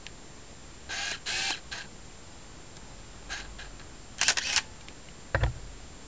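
Minolta Maxxum 400si film SLR's built-in motors whirring in short bursts, about a second in and again just past three seconds, then louder just past four seconds. A sharp click with a thump follows near the end.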